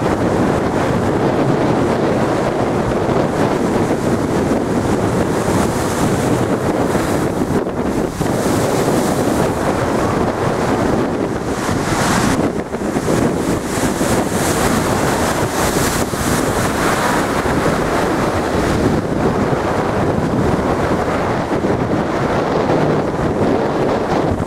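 Stormy sea waves surging and breaking against a sea wall, a steady heavy rush of surf that swells and eases, with strong wind buffeting the microphone.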